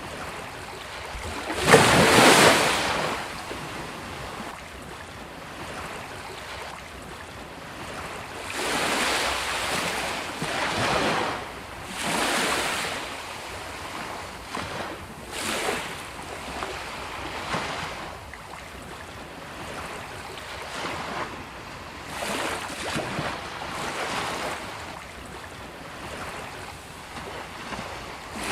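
Sea waves breaking on a beach: irregular swells of surf noise over a steady wash, the biggest wave crashing about two seconds in, with smaller breaks every few seconds after.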